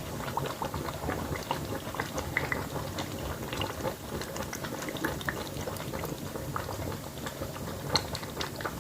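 Food cooking in hot oil on the stove, bubbling and crackling with a steady spatter of small pops.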